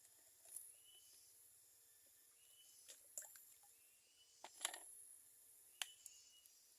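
Quiet outdoor ambience: a faint short high chirp repeats every second and a half or so, with a few sharp clicks and taps about three, four and a half and six seconds in.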